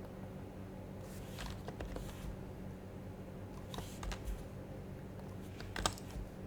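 A few scattered keystrokes on an HHKB Professional HYBRID Type-S keyboard with silenced Topre switches, coming in small clusters about a second in and near four seconds. One sharper click comes near six seconds, over a steady low hum.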